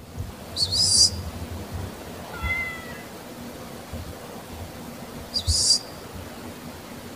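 Cats meowing: two short, shrill, high-pitched calls, one about a second in and one at about five and a half seconds, with a softer meow between them.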